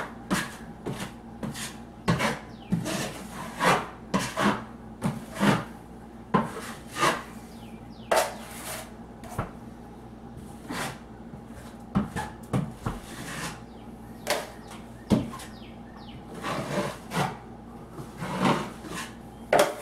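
A 10-inch steel taping knife scraping stiff, half-set joint compound across a drywall ceiling patch, in short irregular strokes.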